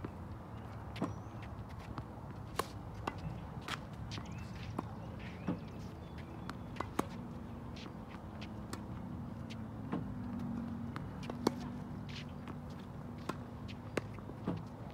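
Tennis practice against a ball machine on a hard court: sharp, irregular pops of slice strokes, ball bounces and machine launches, with court-shoe steps. A steady low hum rises in the middle.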